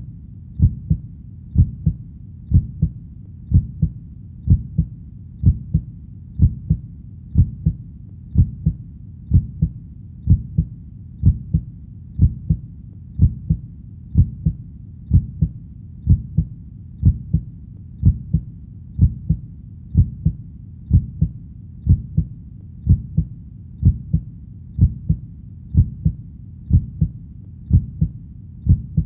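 Heartbeat: steady 'lub-dub' double thumps, about one beat a second, over a low steady hum.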